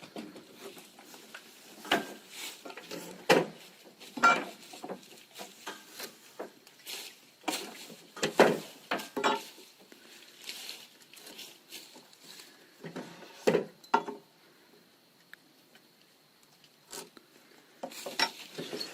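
Irregular knocks, taps and clatter of lumber and tools being handled, with a quiet spell about two-thirds of the way through; no saw is running.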